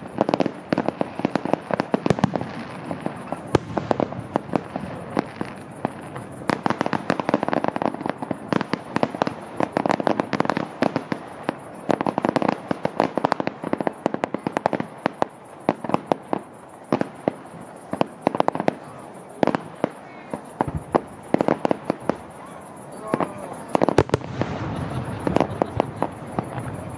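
Aerial fireworks display: shells bursting in rapid, irregular bangs and crackles, several a second, over a steady background of noise.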